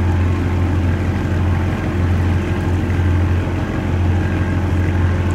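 Boat engine running steadily under way while towing a loaded barge, a constant low drone with rushing noise over it.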